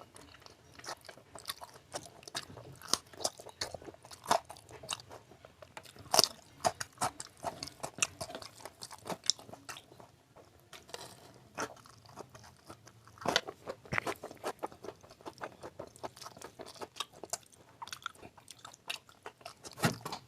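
Close-up eating sounds: chewing and biting into mutton fat with rice, irregular wet smacks and crunchy clicks.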